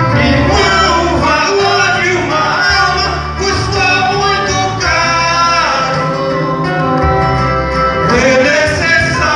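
A boy and a man singing a gospel song as a duet into handheld microphones, over instrumental accompaniment with steady low bass notes.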